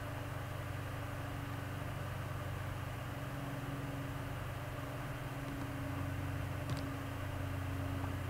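Steady low hum with a few fixed tones and a constant hiss, the background noise of a recording room and its equipment. There is one faint click about two-thirds of the way through.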